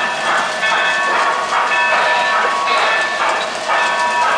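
Lionel O-gauge Hiawatha steam locomotive running, its sound system giving electronic steam chuffing at about two chuffs a second.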